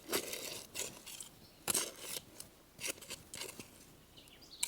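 Irregular snapping, crunching and rustling of plant stalks and leaves being handled and pulled, with several short sharp cracks and one sharp snap near the end.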